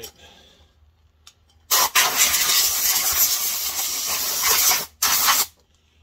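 A pressurised jet hisses loudly for about three seconds, cuts off, then gives a second short burst, as when blowing or spraying a part clean.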